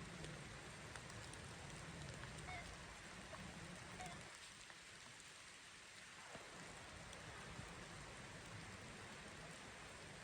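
Steady rain falling on a floorless teepee shelter, a soft even hiss with faint scattered drop ticks, easing slightly for a couple of seconds about halfway through.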